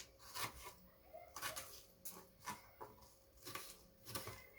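Light, irregular knocks and taps of kitchen food preparation, spaced about half a second to a second apart.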